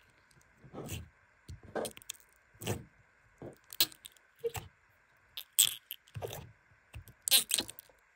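A fingertip pressing into and lifting out of glossy orange slime in a small clear plastic jar, giving a dozen or so irregular crackling pops, each press a short burst.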